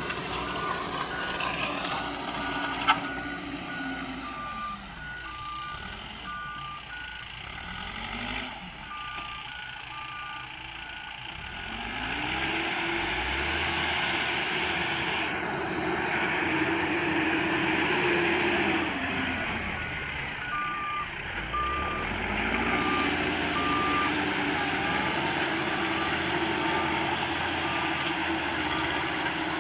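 Mahindra backhoe loader at work: its diesel engine repeatedly revs up and drops back under load while a reversing alarm beeps in a steady two-tone pattern, which stops for several seconds midway and then resumes. One sharp knock about three seconds in.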